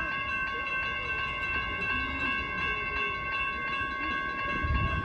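Grade crossing warning bell ringing steadily as the crossing gates come down, signalling an approaching light-rail train, over a low uneven rumble.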